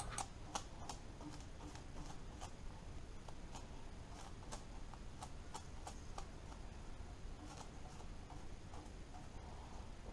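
Faint, irregular light clicks and ticks, a few a second, as the lathe's lead screw is oiled by hand.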